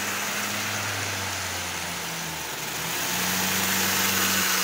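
Model aeroplane motor spinning a propeller, pushing a toy train caboose and two tank cars along the track: a steady drone with the rush of air from the prop. Its pitch dips about two seconds in, then rises and grows louder, and falls away near the end.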